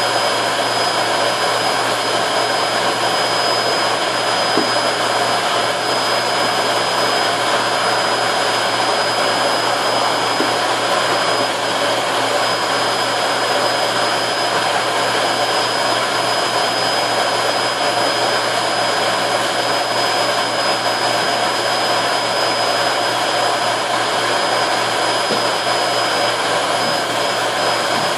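Dansat 21-litre vacuum cleaner running steadily: a continuous rush of air with a thin, steady high-pitched motor whine on top.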